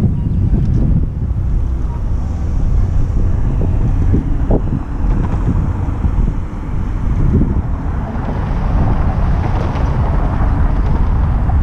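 Wind buffeting the microphone: a loud, uneven low rumble, with a broader rushing hiss building about eight seconds in.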